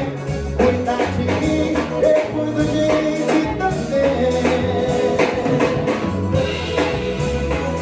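Festa junina song playing, with singing over a steady, evenly spaced drum and percussion beat and a held melody line.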